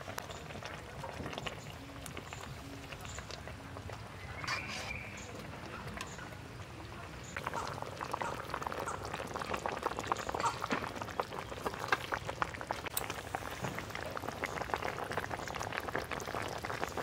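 Fish and brinjal curry simmering in a wok, faint at first, then a dense crackle of bursting bubbles that grows louder about seven seconds in.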